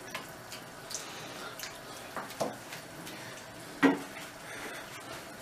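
Diced beef cooking in a nonstick frying pan, giving a faint steady sizzle and bubble. A wooden spoon stirs it and knocks lightly against the pan several times, loudest about four seconds in.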